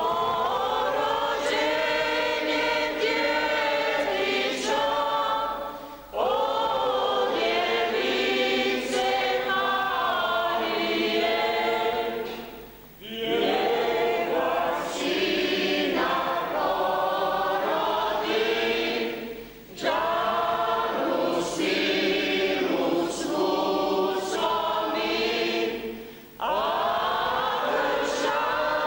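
A church congregation singing together in long phrases of about six or seven seconds, with four short breaks for breath between lines.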